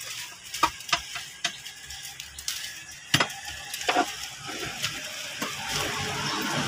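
Light clicks and knocks of metal parts being handled in a van's engine bay, scattered irregularly. A hiss builds up steadily over the last couple of seconds.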